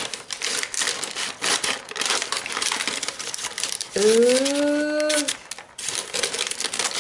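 Scissors cutting through a paper wrapper, the paper crinkling and rustling in a quick run of snips and crackles as it is turned. About four seconds in, a short wordless hum from a person's voice sits over it for about a second.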